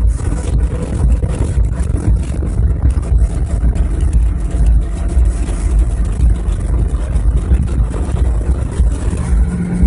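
Car driving at high speed, about 140 km/h, heard from inside the cabin: a loud, steady rumble of engine, tyres and wind, rough and buffeting on the phone's microphone.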